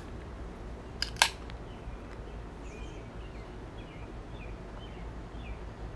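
Aluminium beer can being opened by its pull tab about a second in: a click, then a louder sharp crack a quarter-second later. Birds chirp faintly afterwards.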